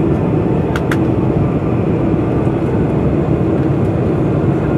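Boeing 747-400 cabin noise on final approach: a steady rush of jet engines and airflow over the extended flaps, heard from a seat behind the wing. Two brief faint clicks sound just under a second in.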